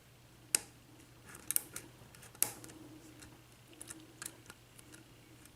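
Small, sharp metallic clicks of a lock pick and tension wrench working the pins of a Marks KIK 6-pin lock cylinder during single-pin picking, with about a dozen irregular clicks, the loudest about half a second in and about two and a half seconds in.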